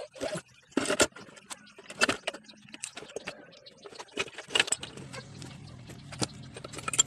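Steel gears and shafts in the opened crankcase of a Euro 150 motorcycle engine clinking and knocking against each other and the aluminium case as they are handled, in irregular short clanks. A low steady hum comes in about halfway through.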